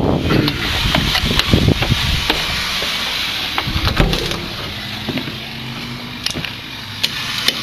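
Footsteps on concrete entry steps and a front door being handled and opened, with a run of small knocks and clicks and a heavy thump about four seconds in; after that the sound is quieter and steadier.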